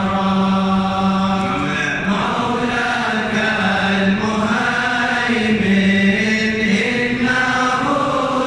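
A large group of men chanting an Arabic devotional poem aloud in unison, in a slow melody of long held notes that step between a few pitches.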